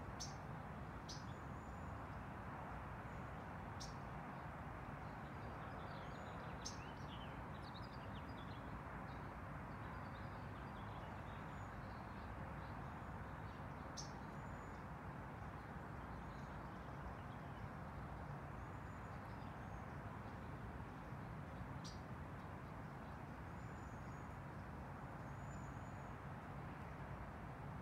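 Small backyard birds chirping, short high chirps scattered throughout, over a steady low background hiss.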